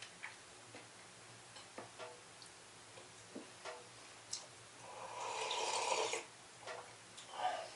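Faint small clicks and mouth sounds of a man eating at a wooden table, then a loud sip from a mug about five seconds in that lasts over a second. A shorter noise follows near the end.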